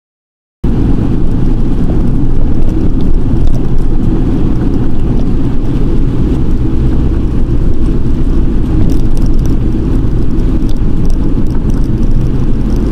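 Ford Transit truck on the move: a loud, steady low engine and road rumble that cuts in abruptly about half a second in.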